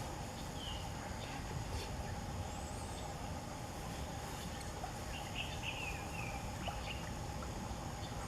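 Steady insect drone over a low rumble, with a few short descending bird chirps about half a second in and again around five to six seconds in.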